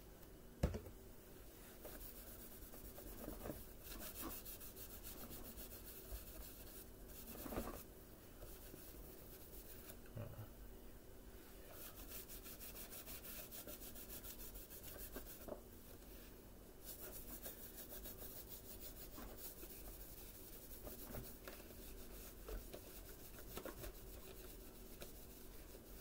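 A wipe damp with rubbing alcohol scrubbed back and forth over the plastic housing of a Bissell Powerforce Bagless vacuum cleaner to rub out scratches: a soft, scratchy rubbing that comes in long spells. There is one sharp knock about a second in.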